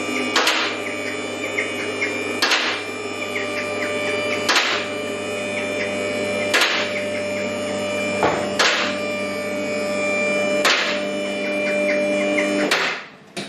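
Two-post car lift raising a car: its electric hydraulic pump motor runs with a steady hum while the lift's safety latches clack about every two seconds as the arms climb. The motor stops suddenly near the end, once the car is at height.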